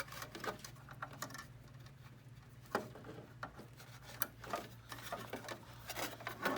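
Scattered small clicks and plastic rattles of cable connectors being handled and plugged in on the copier's finisher, with one sharper click about three seconds in and a few more near the end, over a steady low hum.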